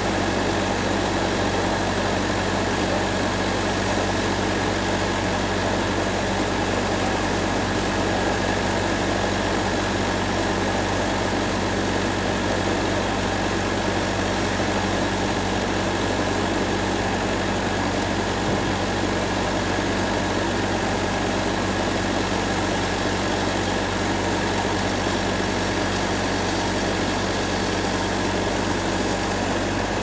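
Large band sawmill running steadily while its blade saws through a cypress log: a constant machine drone with no pauses or changes in pitch.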